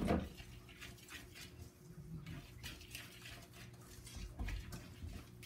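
Wire whisk stirring buttermilk pancake batter in a stainless steel mixing bowl: a knock at the very start, then a run of quick clinks and scrapes against the bowl.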